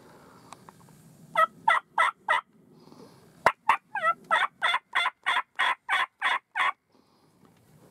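Turkey yelping: a run of four yelps, then a sharp click and a longer series of about ten yelps, roughly three a second.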